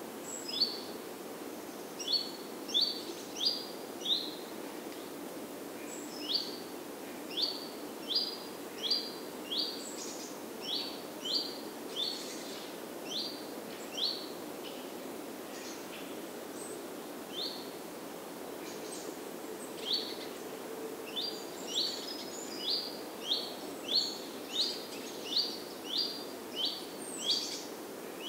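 A songbird off-screen giving short, high chirps, repeated in runs about one or two a second with a lull partway through, over a steady low background noise.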